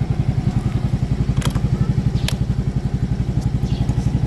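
Motorcycle engine idling with a steady, even pulse. Two sharp clicks are heard about a second and a half in and again just over two seconds in.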